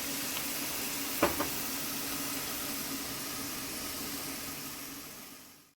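Seafood sizzling in melted butter and olive oil in a large pot, a steady hiss, with a single knock of a utensil about a second in. The sizzle fades out just before the end.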